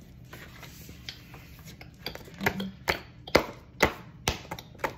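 A run of sharp taps or knocks close to the microphone, about two a second, starting about two seconds in after a quiet stretch.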